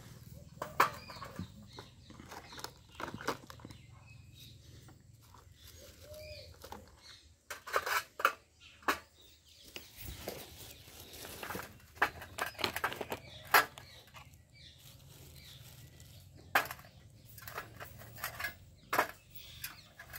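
Round stones knocking against each other and against plastic toy truck beds as they are picked up and set in: irregular sharp clacks, some in quick clusters.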